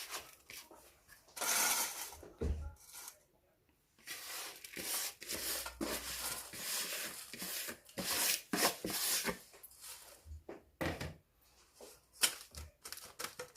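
Scrapes, rustles and light knocks of a utensil against a bowl and tin as a buttery crushed-biscuit mixture is tipped into a tart tin, in a series of short bursts.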